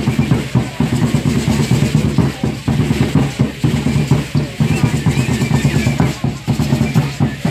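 Tall upright wooden Aztec drums (huehuetl) beaten with sticks in a steady, driving dance rhythm.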